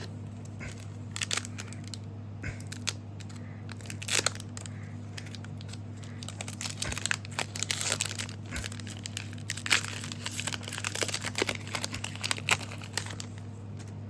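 Foil trading-card booster pack being crinkled and torn open: irregular crinkling and crackling, sparse at first and much busier in the second half, over a steady low hum.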